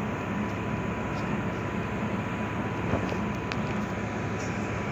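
Steady low drone of ship diesel engines running during berthing, with a faint thin whine above it and a small click about three seconds in.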